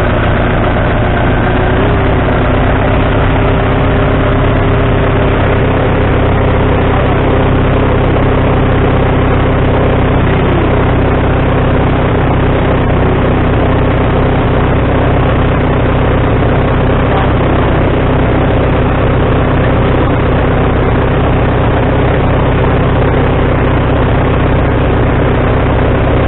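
Gasoline engine of a Wood-Mizer LT40HD sawmill running steadily.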